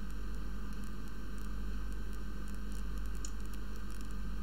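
Steady electrical mains hum with static hiss on the microphone line, and a few faint ticks.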